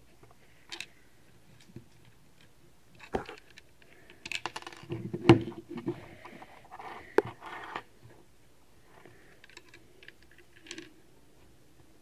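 Plastic Lego bricks clicking and rattling as the pieces of a Lego puzzle box are handled and pushed into place. A few separate clicks come first, then a busier run of rattling clicks in the middle, then a few faint taps near the end.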